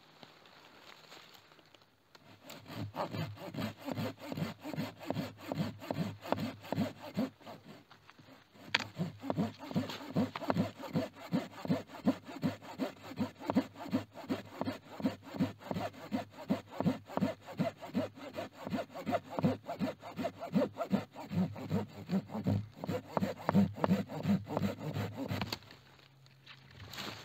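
Hand saw cutting through wood in steady back-and-forth strokes, about three a second. The sawing starts a couple of seconds in, breaks off briefly about eight seconds in, then runs on until shortly before the end.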